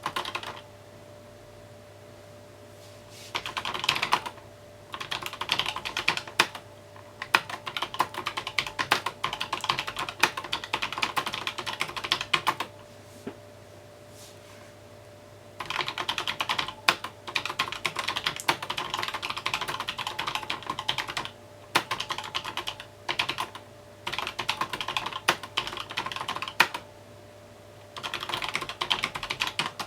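Mechanical keyboard being typed on in runs of several seconds, with short pauses between them.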